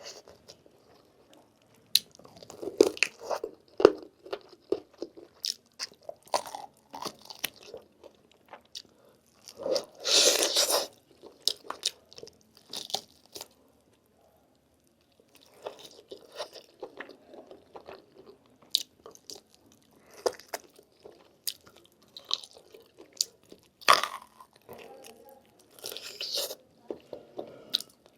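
Someone biting and chewing lamb meat off the thigh bone, with many sharp irregular clicks and wet mouth sounds, a short lull about halfway, and two louder bursts, about ten seconds in and near the end.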